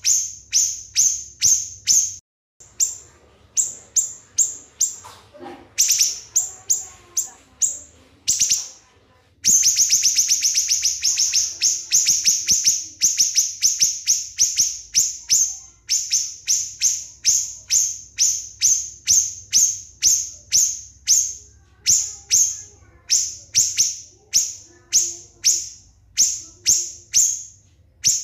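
Small songbird's rapid-fire 'nembak' song used as training song: a long run of short, high-pitched, downward-sweeping notes, about three to four a second. About nine seconds in it breaks into a denser, faster stream, and there are abrupt breaks where the recording is spliced.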